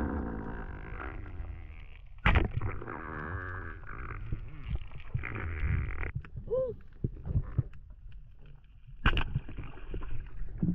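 Muffled underwater water noise heard through a camera housing as a spearfisher swims over a reef: a low rushing and gurgling, with a sharp knock about two seconds in and another about nine seconds in.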